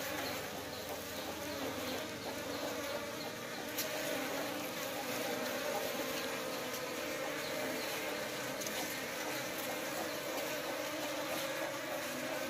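Many honeybees buzzing together, a steady, dense drone of wings that holds without a break.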